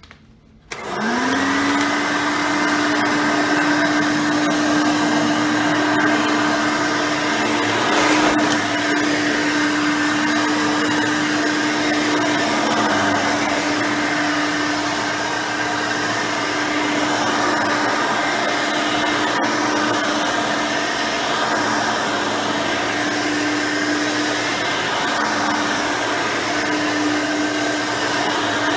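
Hoover Elite 5.0 upright vacuum with its rebuilt original 5-amp motor switching on about a second in, spinning up with a quick rising whine and then running steadily.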